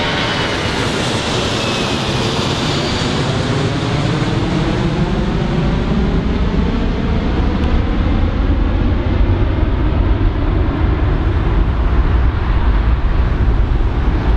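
Jet airliner engines passing close on a landing, the whine falling in pitch as the aircraft goes by, then giving way to a growing low rumble.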